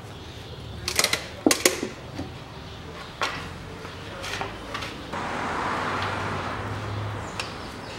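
Metal knocks and clanks as the cylinder head of a Toyota 3S-FE engine is lifted off the block and set down, the sharpest about a second in and a pair about half a second later. About five seconds in, a steady rushing noise runs for some two seconds.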